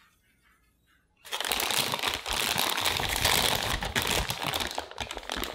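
Clear plastic disposable piping bag crinkling and rustling as hands gather it up around the batter. It starts suddenly about a second in, runs as a dense, loud crackle of many small clicks, and thins out just before the end.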